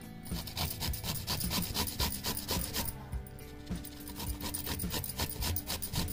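A carrot being grated on a hand grater with a metal grating face: repeated quick scraping strokes, with a short lull about three seconds in.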